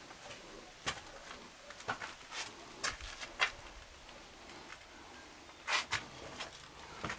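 Faint footsteps and scuffs: irregular soft clicks and scrapes, with a louder pair about six seconds in.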